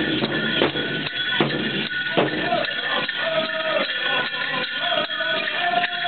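Powwow drum group playing a grand entry song: a steady beat on a large drum, with singers' high held notes from about halfway through and the jingling of the dancers' bells.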